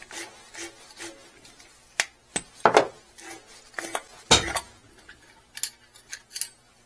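Small metal parts clinking and knocking together as they are handled, in an irregular series of clicks with a few louder knocks midway: the springs and clamps from a blowoff/bypass valve kit.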